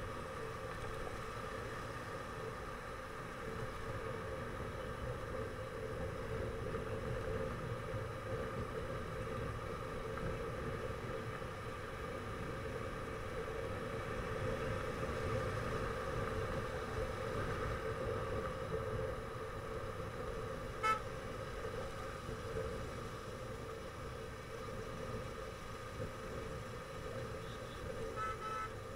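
Steady road and engine noise of riding slowly in traffic, with one short vehicle-horn toot about two-thirds of the way through and a few quick horn toots near the end.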